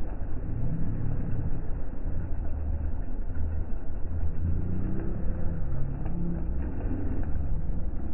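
Motor vehicle engine running, a steady low rumble with a faint hum that wavers slightly in pitch.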